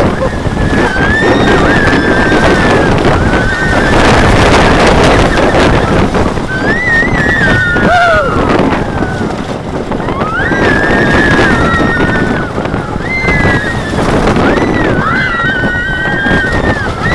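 Wooden roller coaster train running fast along its track, with heavy wind on the microphone, and riders screaming in long, high held cries several times.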